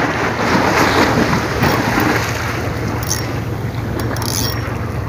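Wind buffeting the microphone and sea washing against a breakwater, over a steady low hum, with a couple of faint clicks about three and four seconds in.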